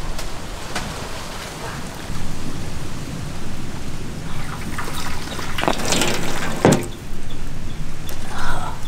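Water splashing and sloshing in a pot as a guinea fowl is dunked in scalding water to loosen its feathers for plucking, with the loudest splashes about six to seven seconds in, over a steady low rumble.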